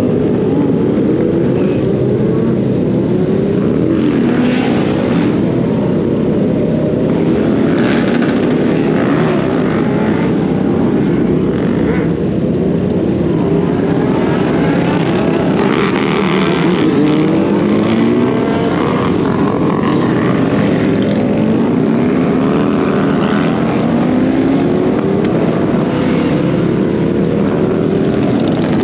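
Motorcycle engine running under way, its pitch climbing again and again as it accelerates, over a dense steady rumble.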